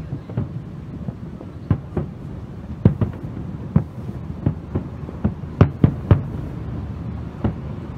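Aerial fireworks shells bursting in an irregular string of sharp bangs over a steady low rumble, with the loudest bangs coming in a quick cluster of three a little past halfway.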